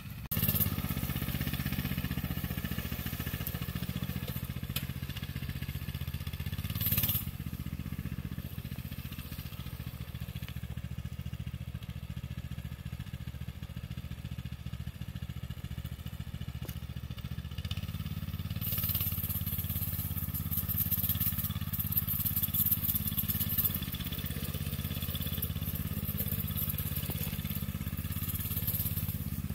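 Coleman BT200X minibike's single-cylinder four-stroke engine running under a rider, its note rising and falling with the throttle. It gets louder past the middle.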